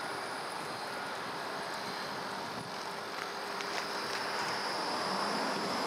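Tram passing close by: a steady rush of wheels on the rails with a faint high whine and a few light clicks, swelling slightly near the end.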